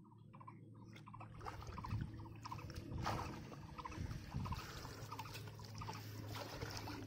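Shallow water splashing and sloshing irregularly as hands grope inside a bamboo polo fish trap pressed into the muddy bottom, then lift it out. A faint steady low hum runs underneath.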